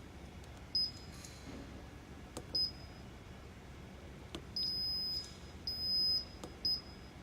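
Electronic beeps from a Robinair A/C recovery machine's control panel as its buttons are pressed to set up a vacuum: five high single-pitch beeps, the third and fourth held about half a second, with light button clicks between them.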